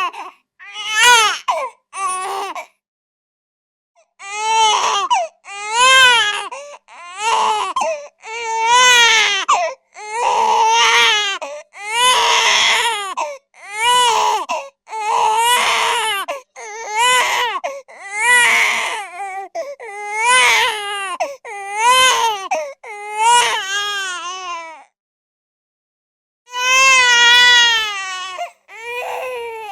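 A baby crying in a run of wails, each about a second long with a wavering, high pitch and short catches of breath between. The crying stops briefly twice, once a few seconds in and again near the end.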